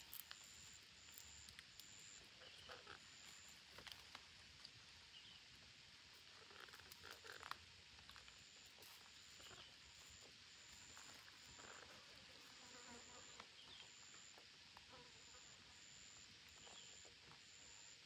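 Near silence: faint outdoor ambience with an insect chirping in short, high, repeated pulses, and a few soft clicks and rustles, bunched about seven seconds in.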